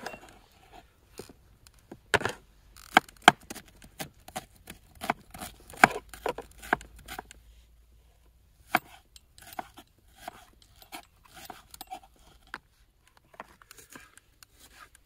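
Kitchen knife chopping a red onion on a wooden cutting board: irregular sharp knocks of the blade on the board, loudest in the first half and lighter toward the end.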